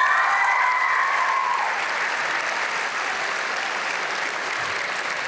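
A large crowd of students clapping, with a few cheering shouts that rise and fall in pitch in the first second or two, then steady applause easing off slightly.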